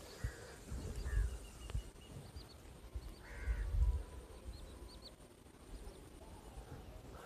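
Birds calling: scattered short, high chirps and one harsher, rough call about three and a half seconds in, over low rumbling swells near one second and again around three to four seconds.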